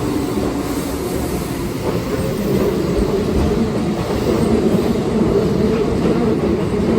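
Keihan electric train running along the platform, a steady rumble of wheels on rail that grows a little louder halfway through.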